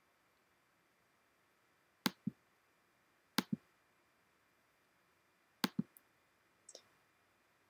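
Three double-clicks on a computer's pointing device, each a pair of sharp clicks, spaced over a few seconds, with a fainter single click near the end.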